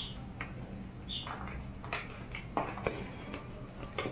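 Ducklings giving a couple of short, high peeps while they peck at wet cornmeal, with light scattered taps from their bills and feet at the feed.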